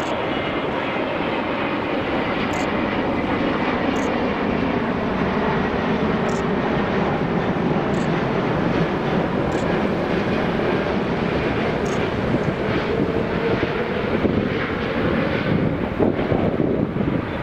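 Airbus A380's four Engine Alliance GP7200 jet engines on final approach with gear down: a steady jet rumble with a faint whine, growing slightly louder as the airliner passes close by.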